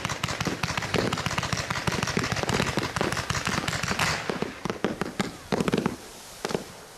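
A Z-shaped fireworks cake firing a rapid string of shots, its horsetail shells breaking gently overhead. About four seconds in the firing thins to a few last separate shots, then stops.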